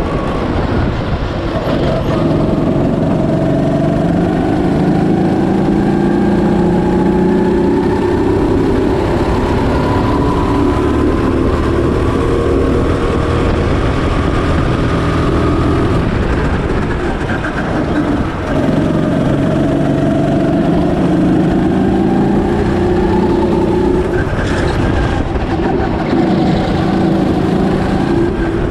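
Go-kart engine of a Birel N35 rental kart running under load, its pitch climbing steadily along the straights, falling away briefly about two-thirds of the way through as it slows for a corner, then climbing again.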